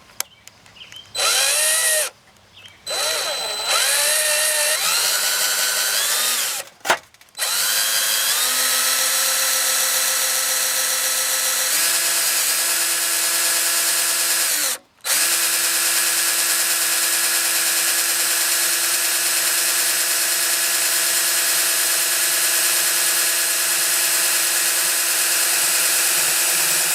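Handheld power drill driving a step drill bit into sheet metal. It starts with a few short trigger pulls, the motor whine rising as it spins up each time, then settles into a long steady run with one brief stop about halfway through.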